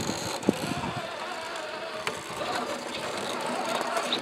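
Axial SCX6 rock crawler's electric motor and geared drivetrain whining as it crawls, the pitch wavering up and down with the throttle. A couple of sharp clicks sound about half a second and two seconds in.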